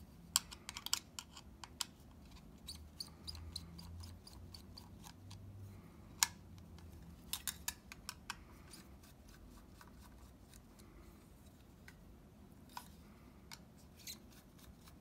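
Phillips screwdriver backing out the small screws that hold a PS4 Pro hard drive in its metal caddy: scattered light clicks and ticks of the driver tip and metal parts being handled, with a sharper click about six seconds in.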